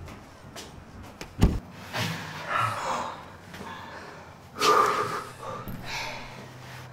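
A single heavy thud about one and a half seconds in as the wooden toilet-stall door bangs shut, followed by two rustling, breathy swells of close movement.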